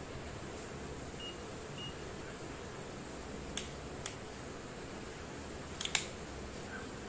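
Fluke 17B+ digital multimeter giving two short high beeps, then a few sharp clicks, the loudest a quick cluster near the end, over a steady hiss.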